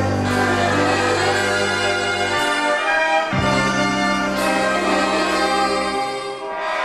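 A concert wind band playing, with trumpets and trombones out front over held low bass notes. The bass line changes note about two and a half and three seconds in, then drops out near the end.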